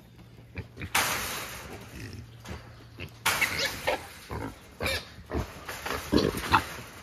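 Trapped wild hogs squealing and grunting: a long harsh squeal about a second in and another just after three seconds, followed by shorter grunts and squeals mixed with sharp knocks.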